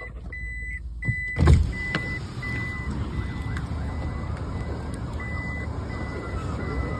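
Road noise inside a moving car, with a loud thump and rush about a second and a half in that fits a power window going down, and a high short beep repeating about once a second.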